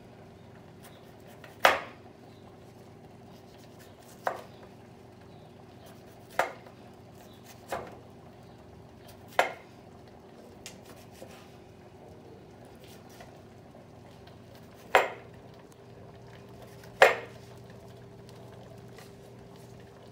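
Kitchen knife slicing through a tomato and knocking on a wooden cutting board: seven sharp knocks, irregularly spaced a second or more apart.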